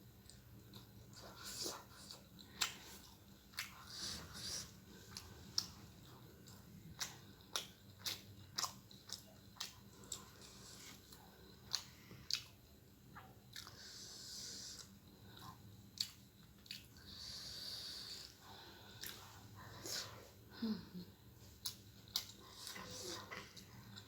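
Close-up eating sounds of spicy instant noodles: chewing with many small wet mouth clicks and smacks, and a few long breathy hisses of breath drawn in.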